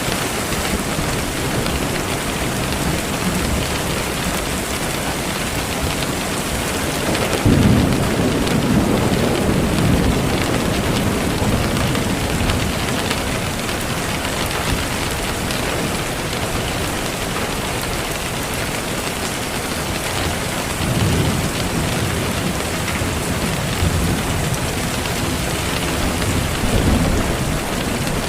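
Thunderstorm: steady heavy rain hissing, with low thunder rumbling several times. The longest and loudest rumble comes about a quarter of the way in, and shorter ones follow near the end.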